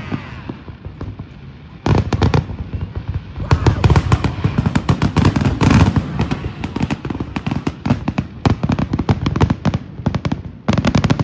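A fireworks display going off in rapid fire: a dense run of booms and crackling reports. After a short lull at the start, the bursts come thick and fast from about two seconds in.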